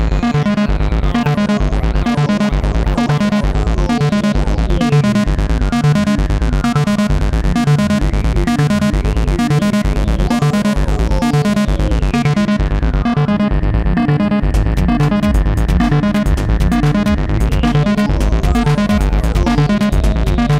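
Live techno played on a Eurorack modular synthesizer: a steady, loud kick drum about twice a second under dense ticking percussion and synth tones, with a few sliding pitches.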